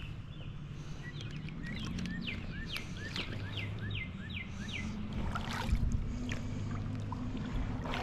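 Creek water moving and sloshing around a wading angler, a steady low rush, with a bird singing a quick run of about eight falling whistled notes in the first half.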